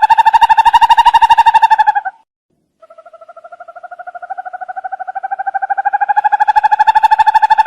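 An owl giving a rapid, even trill of about ten notes a second. It breaks off about two seconds in, then after a short silence starts again quietly and builds in loudness, its pitch creeping slightly upward.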